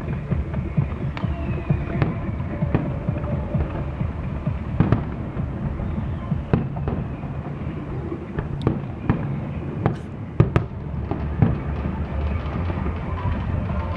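Fireworks display: many sharp bangs and pops, irregular and in quick succession, over a steady low rumble, with the loudest cracks about ten and a half seconds in.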